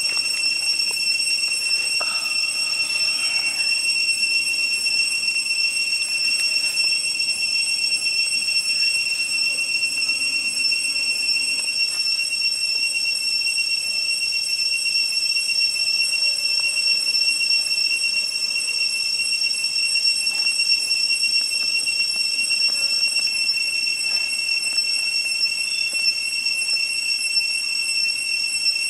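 Cicadas keep up a steady, high-pitched whine, with a few faint crackles from the wood fire.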